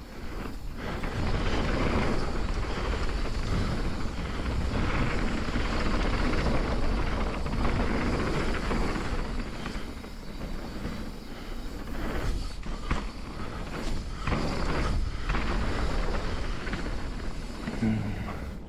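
Trail-riding noise from a Trek Remedy mountain bike: a low rushing of wind on a chest-mounted GoPro's microphone and tyres rolling over a dirt trail, rising and falling with scattered sharp knocks from the bike over rough ground.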